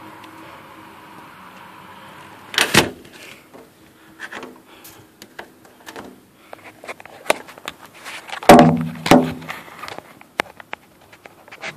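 Scattered knocks and clatter, with a louder bang about three seconds in and another louder, briefly pitched noise at about eight and a half seconds. A faint steady hum is there before the first bang.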